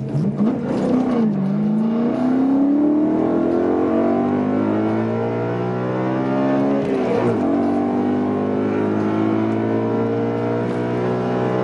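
BMW E92 M3's V8 engine heard from inside the cabin, accelerating hard through the gears. The revs climb steadily, drop sharply for a manual upshift about seven seconds in, then climb again; a shorter dip and recovery comes about a second in.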